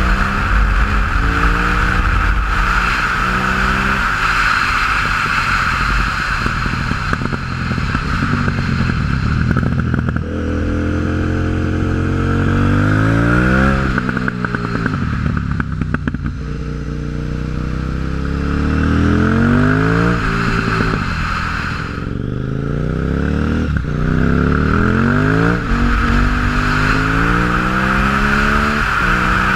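A 2006 KTM 950 Supermoto's V-twin engine, running through a MIVV exhaust with the dB-killers removed. It revs up through the gears again and again, with the pitch climbing and then stepping back at each shift. The throttle closes and the engine winds down about fourteen seconds in and again around twenty-one seconds, then it pulls hard once more, over a steady rush of wind and road noise.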